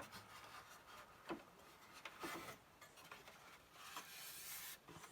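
Faint handling noises of plastic printer parts and wire being fed through: a few light taps, a short scrape, then a longer rubbing sound about four seconds in.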